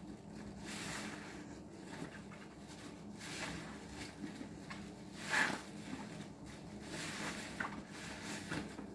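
A green dish-soap-soaked sponge squeezed and kneaded by hand in a basin of suds: wet squelching of foam and sponge in repeated swells, about one a second, the loudest a little past the middle.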